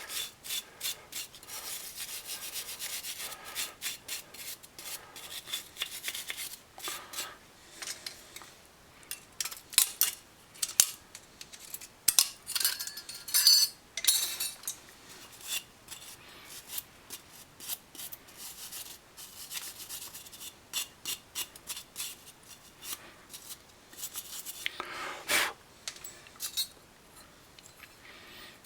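Small metal brake pad keeper clips clicking, clinking and scraping as they are handled and worked into place, with a cluster of sharper clicks about halfway through.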